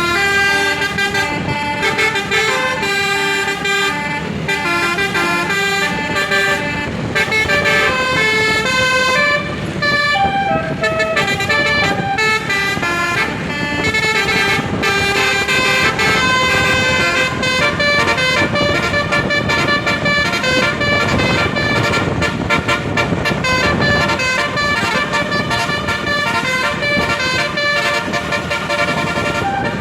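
Indonesian bus 'telolet' (basuri) multi-tone air horn playing a long melody, several pitches sounding together and changing note every fraction of a second.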